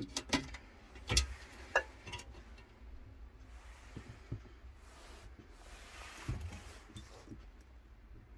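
A few short, sharp clicks and knocks in the first two seconds, then faint rustling.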